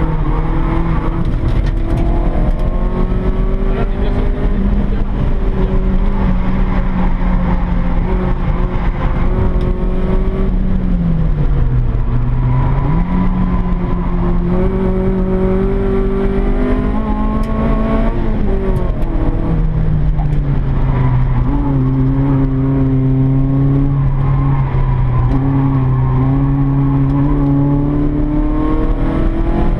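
Peugeot 106 Rallye's four-cylinder petrol engine under load, heard inside the cabin while lapping a circuit. The engine note holds steady, dips briefly about twelve seconds in, climbs again, then drops to a lower steady note about twenty seconds in before rising near the end.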